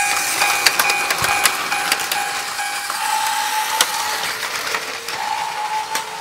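Toy level-crossing alarm sounding its rapid repeated electronic ding, which stops a little before halfway, among sharp clicks and clatter of plastic toy trains and cars; a steady whine follows.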